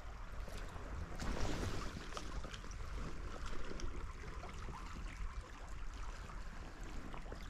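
Shallow creek water running over a gravel riffle, a steady rushing hiss, with wind rumbling on the microphone.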